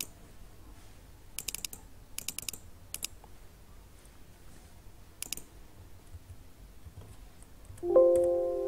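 Computer mouse clicks and keystrokes, some in small quick clusters. About eight seconds in, the Windows alert chime sounds for a file-rename warning dialog: a chord of several steady tones that rings on and fades.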